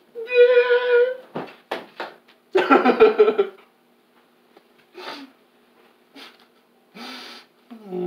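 A young man's wordless vocal noises: a held tone just after the start, a louder, rougher one about three seconds in, then a few short, fainter sounds.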